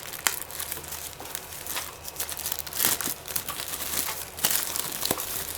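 Packaging being handled while unpacking a laptop stand: irregular crinkling and rustling with scattered small clicks and knocks.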